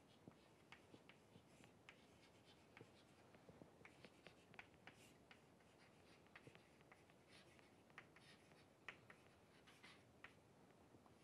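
Chalk writing on a chalkboard: faint, irregular taps and short scratches as a phrase is written out by hand.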